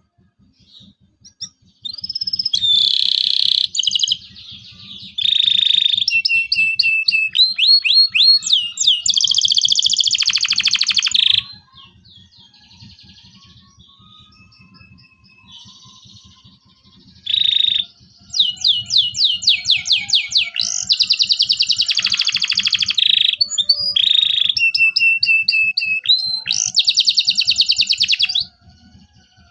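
Domestic canary singing: two long bouts of rapid trills, fast repeated chirps and quick sweeping notes, the first starting about two seconds in and the second near the middle, with a few seconds' pause between them.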